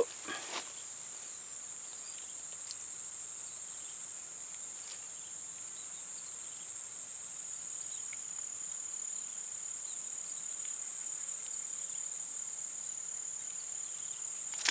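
A steady, high-pitched chorus of insects singing without a break.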